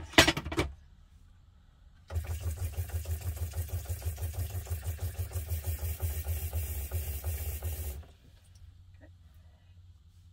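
A couple of sharp knocks, then the van's on-demand water pump running with a rapid, even pulsing for about six seconds as the kitchen faucet runs water, before cutting off.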